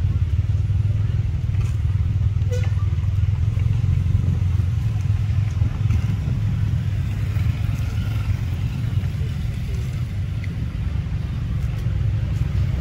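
Wind buffeting the microphone: a steady low rumble, with a few faint clicks and taps.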